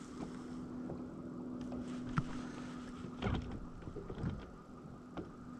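Electric trolling motor humming steadily, with a few light knocks from the boat; the hum drops away about two-thirds of the way through.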